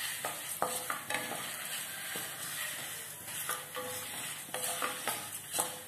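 Coriander seeds, lentils, black pepper and dried red chillies sizzling in a little sesame oil in a kadai while a spatula stirs them. The sizzle is steady, and irregular scraping strokes of the spatula against the pan run through it.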